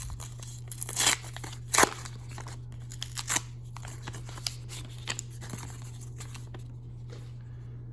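A wrapped pack of hockey trading cards being opened by hand: a few sharp rips and crinkles of the wrapper in the first few seconds, then quieter rustling as the cards are handled.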